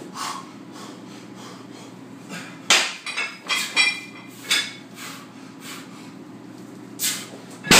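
A 165 lb circus dumbbell being lifted for a rep: a sharp metal clank about three seconds in, then several ringing metallic knocks as it is worked up overhead. A loud heavy crash comes near the end as it comes back down. A steady low hum sits underneath.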